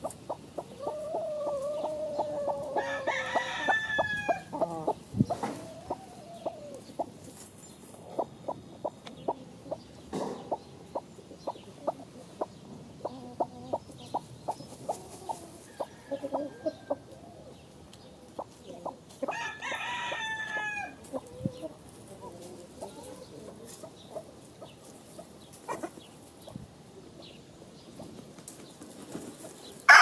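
Chickens scratching and dust-bathing in dry leaves and dirt, a steady scatter of small scratches and clicks. A low drawn-out chicken call comes in the first few seconds, and a rooster crows twice, about sixteen seconds apart.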